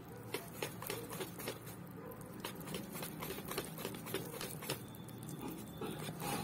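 Wire whisk beating runny semolina cake batter in a metal bowl: rapid, irregular clicks of the tines against the bowl's side.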